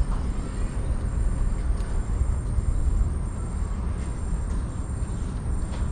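Wind buffeting the camera's microphone: an uneven low rumble with no distinct events.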